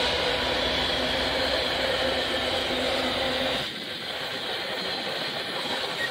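Loaded iron-ore gondola wagons of a long freight train rolling past close by, their wheels rumbling steadily on the rails, under a droning hum with a few held tones. About three and a half seconds in, the deep rumble and the drone drop away abruptly and the rolling goes on quieter.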